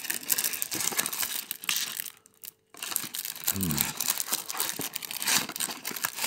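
Crinkling and rustling of foil-wrapped Magic: The Gathering booster packs and cardboard packaging being handled and pulled out of a prerelease box by hand, full of small crackles. The sound drops out briefly a little past two seconds in.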